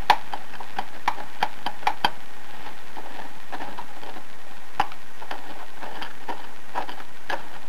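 Irregular light clicks and taps of a fingertip prodding the rusty, corroded metal hub of a front-load washer drum: a quick run of about eight in the first two seconds, then a few scattered ones later. A steady hiss lies under it throughout.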